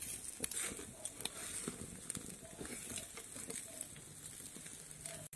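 Pork shashlik sizzling on skewers over hot charcoal, a faint steady hiss with scattered small pops and crackles.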